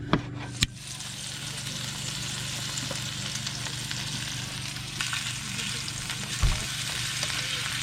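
Food sizzling in a frying pan, a steady crackling hiss over a low hum. Two sharp knocks come in the first second, and a dull thump near the end.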